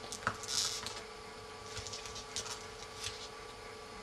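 Faint handling sounds of an iPhone 3G's LCD being slid under its metal frame by hand: a few small clicks and short scraping rustles of the parts, over a faint steady background tone.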